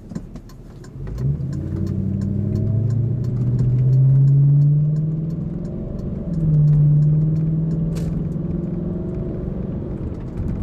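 Audi A6 4.2's V8 with its mufflers deleted, heard from inside the cabin, pulling away with a rising note. Around five and a half seconds in the pitch drops as it shifts gear, then it pulls again and settles to a steady cruise.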